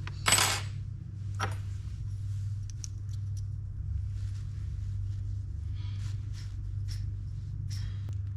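Small metal reel parts and bearings handled on a bench: light clicks and rustles, with a short rush of noise about half a second in and a fainter one a second later, over a steady low hum.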